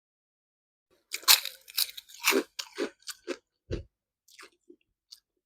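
Close-miked eating sounds: a person biting and chewing crunchy food, with loud crunches starting about a second in, then softer chewing that thins out, and a single low thump near the middle.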